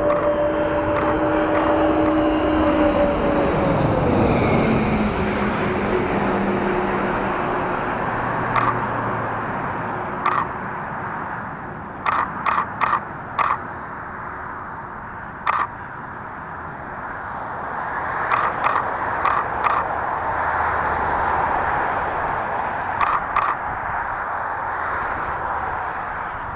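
Antonov An-124's four turbofan engines passing low overhead on landing approach: a loud jet rush with a steady whine that drops sharply in pitch as the aircraft goes by, then fades and swells again as it continues down the runway. Short sharp clicks break in a dozen or so times in the second half.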